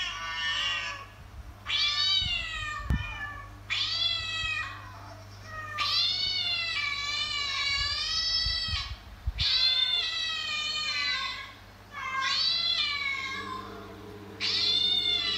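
A mother cat's call to her kittens: a series of about nine meows, each a second or so long with the pitch bending, the longest near the middle.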